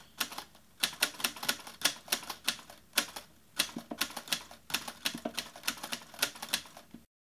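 Typewriter sound effect: quick, irregular key clacks in short runs, about four or five a second, keeping time with on-screen text being typed out. They stop just before the end.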